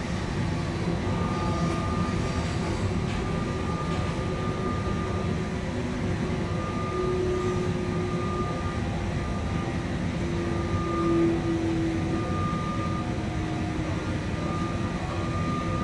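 Passenger train running, heard from inside the carriage: a steady rumble with a thin high whine and a lower hum that come and go.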